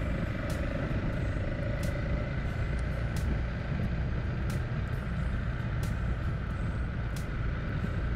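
Adventure motorcycle riding along a dirt track at steady speed: engine running with wind and tyre noise, and a sharp tick about every second and a quarter.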